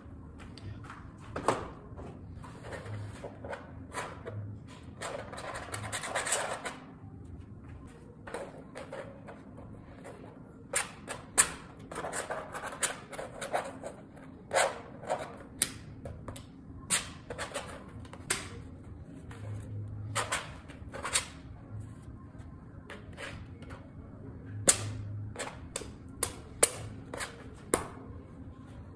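Palette knife spreading and scraping thick oil paint on a stretched canvas: brief scrapes mixed with many sharp taps and knocks of the blade against the canvas.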